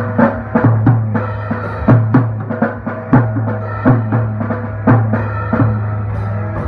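Drum struck with drumsticks in a quick, uneven beat with loud accents, along with a song that has a held bass line and guitar.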